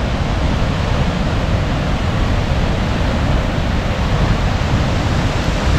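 Henrhyd Falls, a waterfall, heard close up as a loud, steady rush of falling water hitting the ground and pool below.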